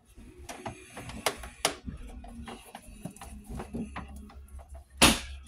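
Stranded black conductor being handled and pushed into place inside a metal breaker panel: scattered clicks, taps and rustles of wire against the enclosure, with one loud brief rush of noise about five seconds in.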